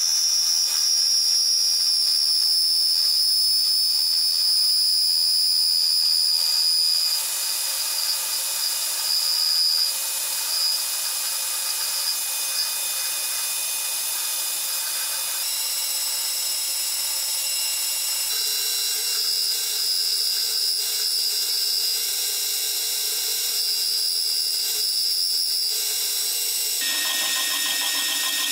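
Metal lathe turning the outside diameter of a steel bar, the cutting tool taking off the mill scale: a steady high-pitched whine over a hiss of cutting, shifting in tone a few times.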